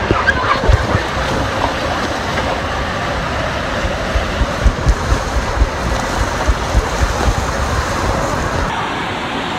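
Steady rush of water and air as a rider speeds down an enclosed looping water slide tube, with irregular low thumps of the body against the tube.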